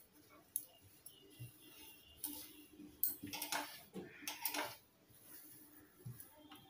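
Blouse fabric being handled and shifted on a sewing machine table: soft rustles and light clicks, busiest about halfway through, over a faint steady hum.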